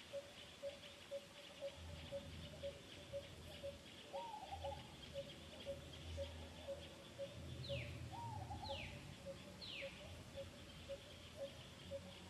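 Faint outdoor birdsong: a bird repeats a short low note about twice a second, with an arched call about four seconds in and again near eight seconds. Three quick falling whistles come around eight to ten seconds, over a steady high buzz.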